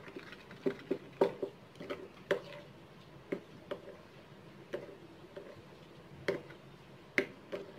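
A metal spoon stirring a thick chocolate mixture in a glass bowl, clinking against the glass about ten times at an uneven pace.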